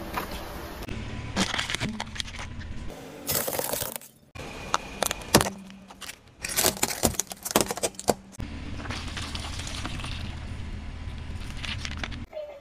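Car tyres rolling over and crushing a series of objects, including fruit, a balloon and a plastic bottle, in clips cut one after another. Several sharp cracks and crunches, with a steady low rumble from the car in between.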